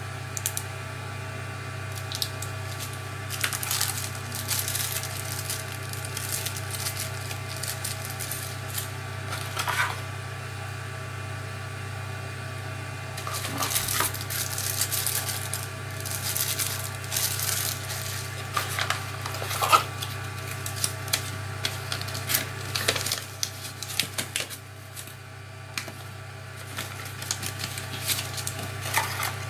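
A plastic mailing bag crinkling and rustling in spells as hands handle it and a small cardboard box, with small clicks and taps from the small parts being handled, over a steady low hum.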